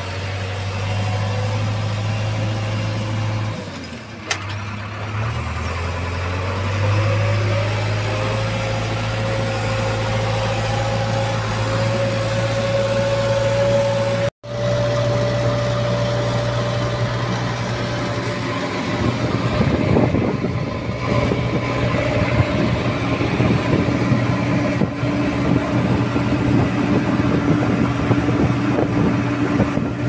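JCB 3DX backhoe loader's diesel engine running steadily while the machine drives along the road, heard from inside the cab, with a whine that rises in pitch and then holds. The sound drops out briefly about halfway through, and in the second half a rapid rattle joins the engine.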